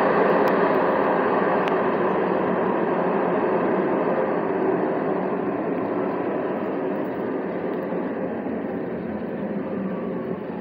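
Line 1 light rail car (Alstom Citadis Spirit) heard from inside by the doors: a steady rumble of wheels and traction motors with a faint whine, slowly growing quieter as the train slows. Two faint clicks come in the first two seconds.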